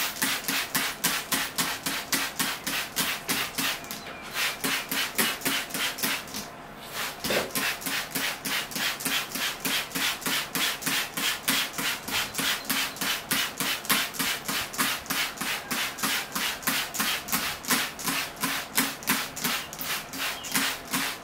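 Hand trigger spray bottle squeezed again and again, each squeeze a short hiss of mist, about three a second, with a couple of short pauses in the first seven seconds.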